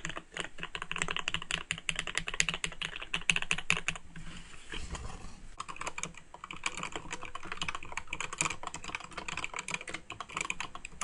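Mechanical keyboard typed on rapidly, a dense run of key clicks. The typing pauses for about a second and a half roughly four seconds in, then resumes.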